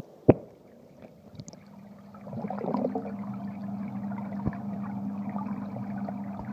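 A sharp knock just after the start, then muffled underwater sound in a swimming pool: water churning and bubbling over a steady low hum, swelling about two seconds in.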